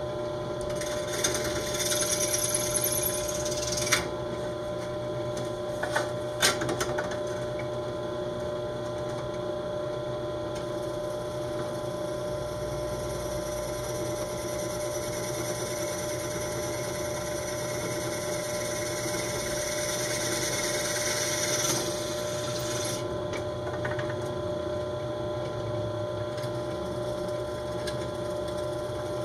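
Benchtop drill press motor running with a steady hum while a small twist bit drills into a fiberglass tube. The bit cuts in two stretches: a short one of about three seconds starting a second in, then a longer one lasting about eleven seconds from about ten seconds in. A few sharp clicks come around four and six seconds in.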